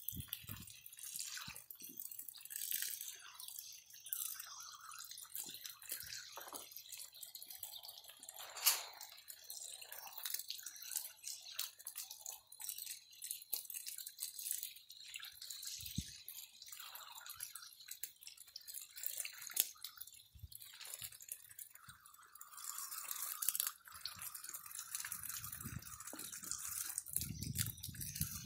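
Water from a garden hose spray nozzle splashing and dripping in irregular spatters as a capuchin monkey's hand blocks the spray, with one sharp tap about a third of the way in.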